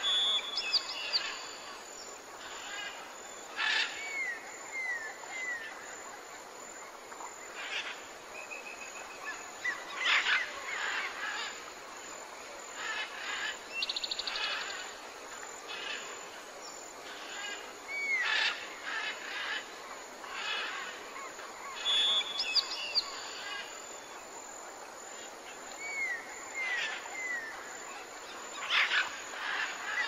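Forest birdsong: assorted short bird chirps and downward-slurred calls over a steady background hiss. The same run of calls comes back about 22 seconds later.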